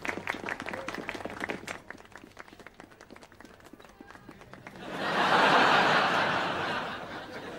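Applause with separate hand claps, then about five seconds in a louder burst of audience laughter that swells and fades.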